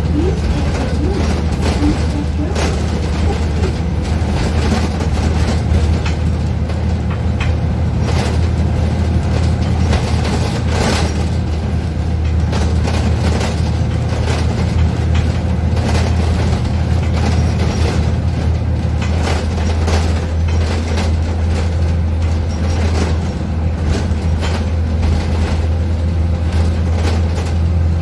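Cabin noise inside a moving Zhong Tong LCK6180GC articulated bus: the steady low drone of its Doosan GL11K CNG engine and drivetrain with road noise. Scattered rattles and knocks come from the cabin fittings.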